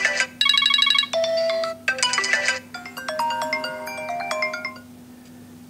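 iPhone XS ringtone previews playing through the phone's speaker: four or five different short ringtones in quick succession, each cut off after under a second as the next one is tapped. The last one runs for nearly two seconds and stops about five seconds in.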